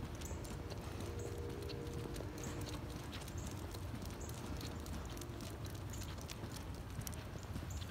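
Footsteps of a person and a dog walking briskly on a wet paved sidewalk: irregular sharp taps and clicks over a steady low rumble.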